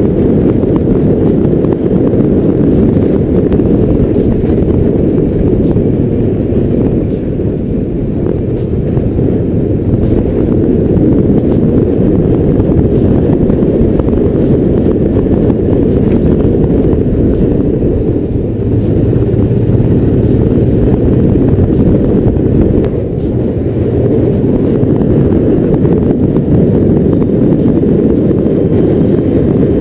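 Honda Africa Twin 750's V-twin engine running steadily while riding, heard from a camera on the bike under heavy low wind rumble on the microphone.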